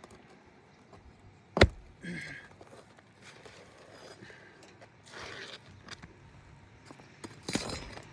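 A single sharp, loud knock about a second and a half in, then a few short bursts of scraping and rustling as a leftover roofing nail is worked loose and a damaged asphalt shingle is slid out.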